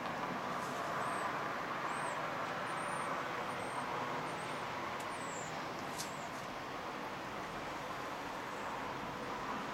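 Steady hum of distant road traffic. A small bird chirps high and briefly about seven times in the first half, and there are two sharp ticks about halfway through.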